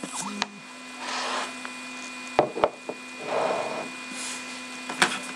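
Handling noise from a camera being moved about and set back down on a desk: soft rustles and scrapes, a few sharp clicks near the middle and a louder click about five seconds in. A steady electrical hum runs underneath.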